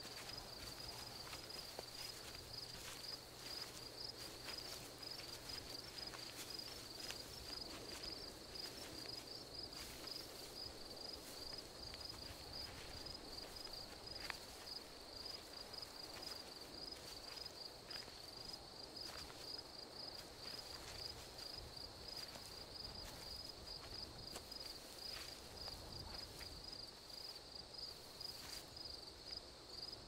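Crickets chirping steadily in a faint night ambience, a fast, even pulsing trill, with scattered soft rustles and clicks of people walking through tall grass.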